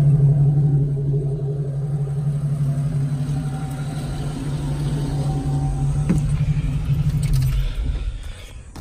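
1993 Jeep Wrangler YJ's 4.0-litre straight-six idling steadily, heard through its exhaust with no exhaust leak. The engine note drops away about seven and a half seconds in.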